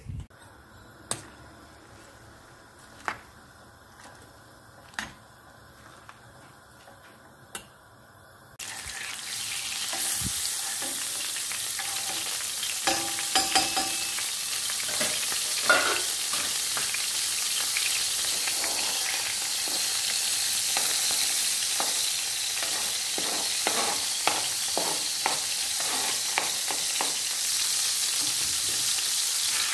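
Food sizzling in a frying pan as it is stirred, with a utensil knocking against the pan again and again. The sizzle starts abruptly about eight seconds in; before that it is quiet apart from a few single taps.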